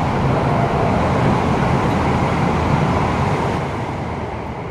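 A CRH380A high-speed train running along the platform, with a steady rushing rumble of wheels and air that fades away over the last second or so.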